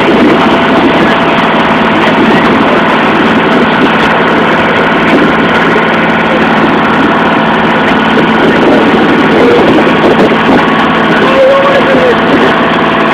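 A boat's engine running steadily under way, loud and unchanging.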